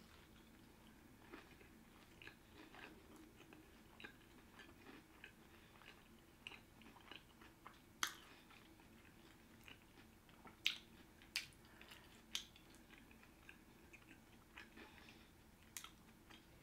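Faint chewing and wet mouth clicks of a person eating sushi, with a few sharper clicks scattered irregularly through.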